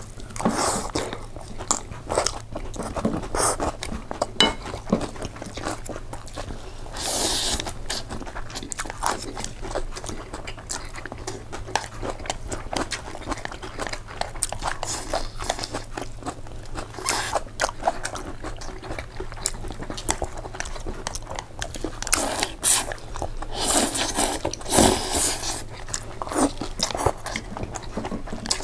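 A person eating pasta close to the microphone: steady chewing and biting, with crunchy bites among it. There are louder moments about seven seconds in and again from about 22 to 25 seconds in.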